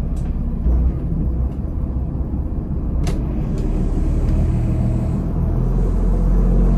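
Diesel engine of a Nordhavn 43 trawler running under way, heard inside the cabin as a steady low rumble that grows a little louder and fuller from about four seconds in as the RPM is raised toward 1200. A single light click about three seconds in.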